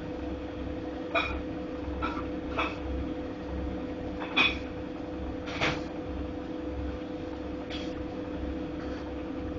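Godrej fully automatic washing machine running with a steady motor hum and a low repeating throb, and irregular sharp knocks and clicks, the loudest about four and a half seconds in.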